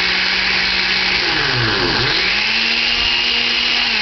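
Osterizer Dual Range Pulse-Matic blender motor running loud and steady on its high speed range, with a high whine over the motor hum. About halfway through, the motor pitch dips and then climbs back to a slightly higher steady note.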